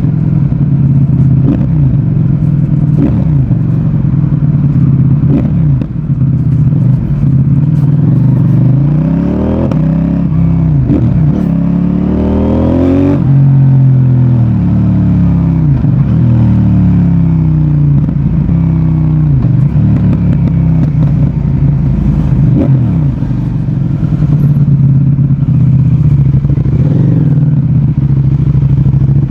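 CFMOTO 800NK Advanced's parallel-twin engine and exhaust running loud under a ride, the revs rising and falling again and again with throttle and gear changes. About ten seconds in the revs climb for a few seconds, then drop sharply at a shift.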